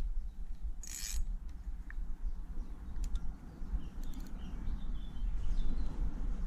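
Fixed-spool fishing reel being wound in against a hooked tench, its gears clicking and creaking, under a steady low rumble. A short hissing burst comes about a second in.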